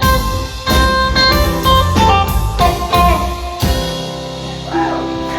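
Live blues-rock band with electric guitar and drums playing the closing instrumental bars of a song: a run of struck accents, then a final held chord ringing out over the last second and a half or so.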